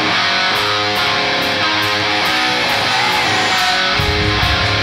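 Rock music led by guitar, with a light tick keeping time about twice a second and a sliding guitar note around three seconds in; a heavy bass line comes in near the end.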